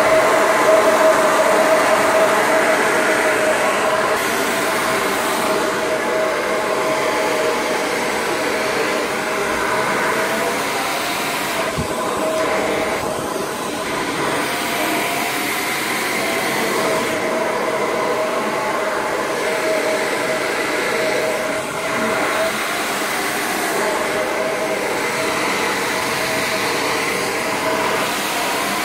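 Hand-held hair dryer running steadily: a loud, even blowing noise with a constant whine.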